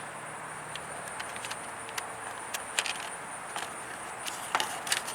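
Scattered light clicks and taps of small plastic console trim parts being handled, over a steady background hiss.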